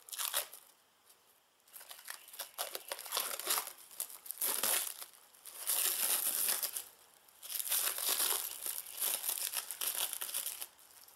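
Plastic stretch wrap crinkling and crackling as it is unwound and peeled off a glued-up wooden block, in several bursts of a second or more each, stopping near the end.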